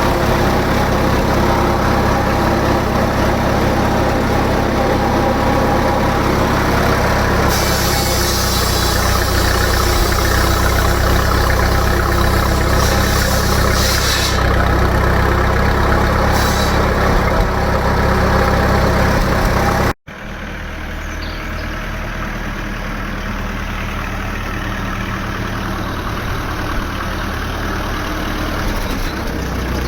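Standard Fordson tractor's four-cylinder side-valve engine running steadily on TVO. About two-thirds of the way through the sound breaks off for an instant and then carries on a little quieter.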